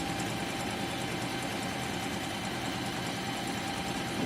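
Singer M3505 sewing machine running steadily at constant speed, stitching a line of fabric, with a steady motor whine under the fast chatter of the needle.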